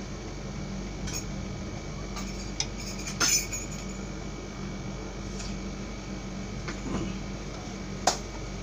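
Dishes and utensils clinking and knocking as they are handled at a counter, with a louder clatter a little past three seconds in and a sharp clink near the end, over a steady low hum.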